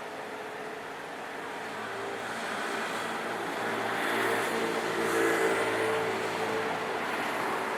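A vehicle passing by: a steady engine and road noise that swells to its loudest about five seconds in, then eases off a little.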